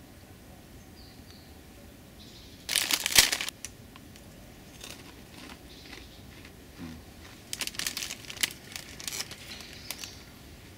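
Plastic snack bag of puffed rice crinkling as it is handled. There is one loud burst about three seconds in, then a run of shorter crinkles near the end.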